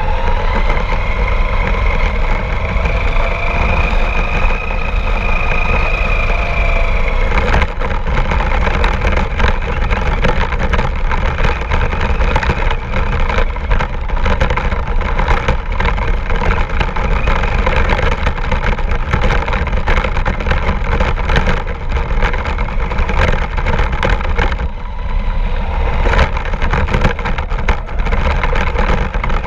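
RC car running, heard from a camera riding on it. For the first seven seconds or so a motor whine rises and falls in pitch; after that dense crackling and rattling take over, with a heavy low rumble throughout.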